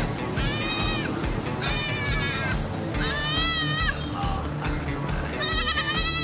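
Macaque calling in a series of high-pitched, wavering screeches: four calls, each under a second long, about a second apart.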